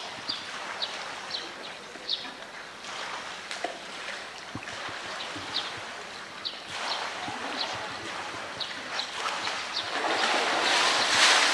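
Water sloshing and lapping as a polar bear swims in its pool, swelling to a louder splash near the end as it surges up out of the water. Short high chirps repeat about twice a second over it.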